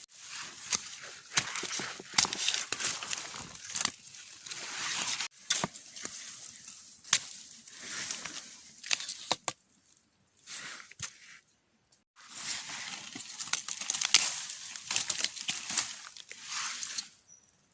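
Dry leaves and brush rustling and crackling in uneven bursts, with sharp snaps of twigs or bamboo, as someone pushes through a bamboo thicket. It pauses briefly a little past the middle.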